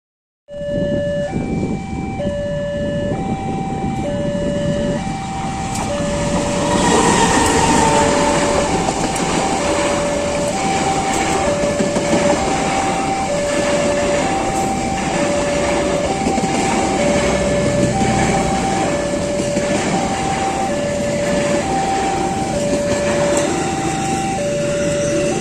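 Electronic level-crossing warning bell alternating between two tones about once a second, while a train runs past from about six seconds in, its wheels clacking over rail joints.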